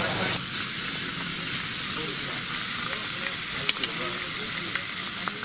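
Sea bass fillets sizzling steadily on a hot flat-top griddle, with a few light clicks scattered through.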